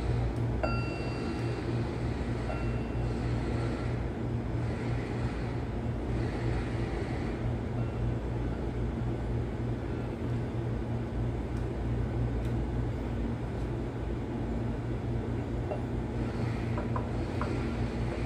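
A steady low machine hum runs throughout. Over it come a couple of short ringing metal clinks near the start and a few light metal clicks near the end, from the engine's steel timing gears being turned and seated by hand.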